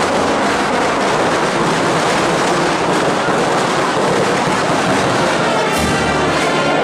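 Loud, continuous crackling of festa firecrackers going off in rapid succession. Pitched music comes in near the end.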